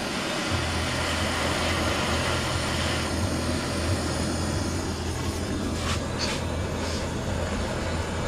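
Gas torch flame burning steadily, heating oil-fouled spark plugs to burn them dry, with a low rumble that sets in about half a second in. Two short clicks about six and seven seconds in.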